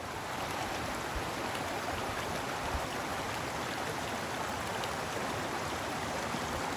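Small rocky creek rushing and splashing over rocks and little cascades: a steady, even rush of water.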